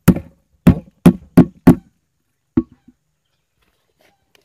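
Sharp, loud knocks of hard plastic close to the microphone, five in quick succession and then one more about a second later, as a plastic scoop is handled in a plastic tub.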